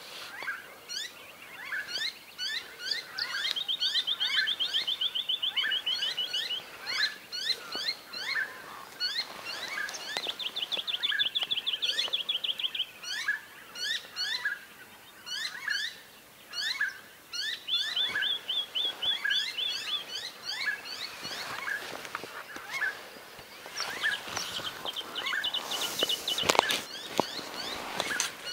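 Dawn chorus of many birds: steady overlapping chirps and whistles, with bursts of fast trilled notes every several seconds. A short burst of noise stands out a couple of seconds before the end.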